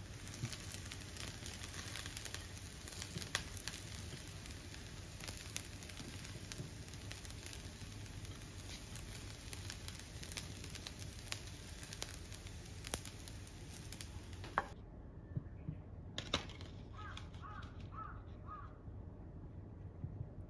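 Silicone spatula scooping and scraping fried rice out of a nonstick frying pan onto ceramic plates, with a low hiss and scattered crackling clicks. About three-quarters of the way through the hiss drops away, leaving a few soft clicks and knocks.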